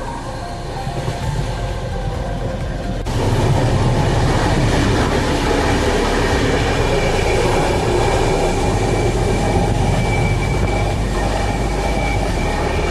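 Train running on the track, a steady rumble and rattle of rail noise that jumps louder about three seconds in.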